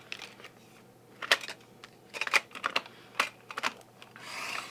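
Metal watercolour palette tins and a plastic pan insert being handled on a wooden table: a scatter of sharp clicks and taps, then a short scraping swish near the end.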